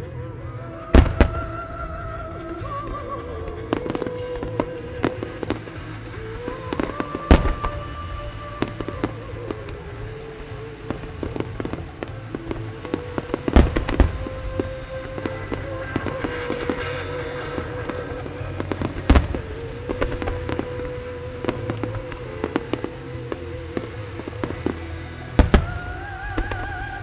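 Large aerial fireworks shells bursting in a star mine barrage: five heavy booms about six seconds apart, with many smaller pops and crackles between them. Background music with long held notes plays under it.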